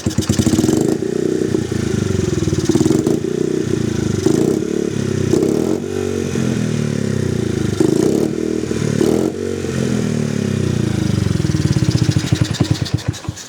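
Honda XR50's small single-cylinder four-stroke engine running cold, its revs rising and falling with throttle blips, then stalling and cutting off suddenly at the end.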